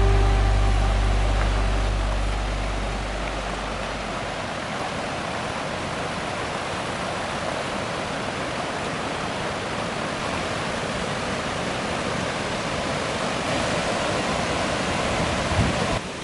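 Steady rushing of a wide river cascade, white water tumbling over low, stepped rock ledges. The last low notes of a music track die away over the first few seconds.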